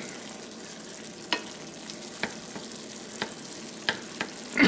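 Food sizzling in a frying pan as it is stirred, with a few sharp clicks of the utensil against the pan.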